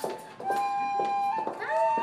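Recorders playing long held notes, the pitch stepping up about halfway through, with a second note sounding at the same time near the end.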